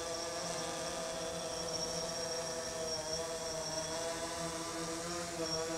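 DJI Phantom 3 Standard quadcopter hovering overhead, its propellers giving a steady whining hum that wavers slightly in pitch.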